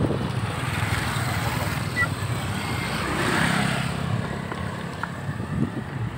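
Small motorcycle engines running steadily with road noise as the bikes ride along; the sound swells about three seconds in, then eases.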